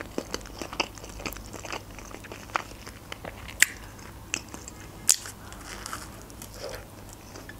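A person chewing and biting into a burger, heard as wet mouth clicks and soft crunches, with two sharper crunches near the middle.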